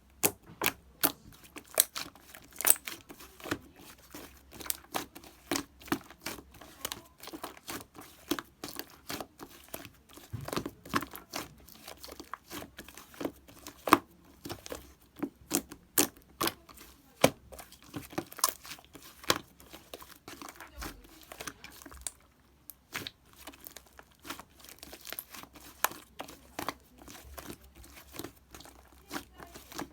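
Slime being squished and pressed by hand, giving an irregular run of sticky clicks, pops and crackles, several a second, with a short pause about two-thirds of the way through.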